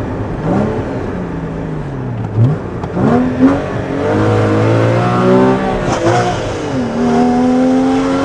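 Car engine and exhaust under way, its pitch falling, then climbing sharply, dipping and climbing again, as with acceleration and gear changes.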